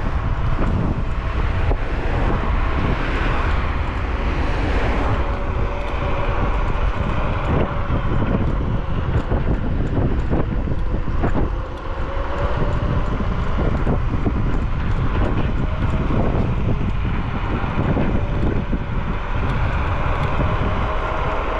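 Steady wind rush on the microphone and road noise from an electric scooter riding along a road, with a faint whine that slowly drifts in pitch.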